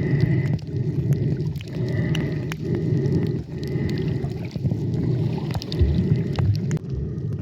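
Muffled underwater noise heard through a waterproof camera housing while snorkeling: a dense low rumble that surges and dips about once a second, with scattered clicks.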